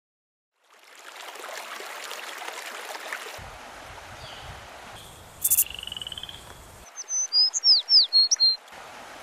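River ambience: an even rush of flowing water, with a brief click about halfway through. From about seven seconds in, a small bird gives a quick series of sharp, high chirps, the loudest sound here.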